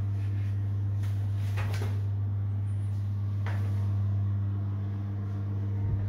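A steady low hum runs throughout. A few light clicks or knocks come on top of it, about one and a half seconds in and again about three and a half seconds in.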